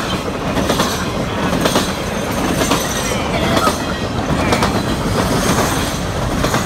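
Triple Crown RoadRailer freight train rolling past: a steady rumble of steel wheels on rail, with irregular sharp clacks as the wheels cross rail joints.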